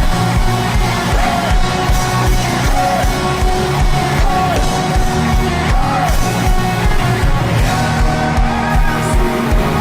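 Live gospel praise music: a band playing a fast, steady beat under sustained chords, with a melodic line sliding over it.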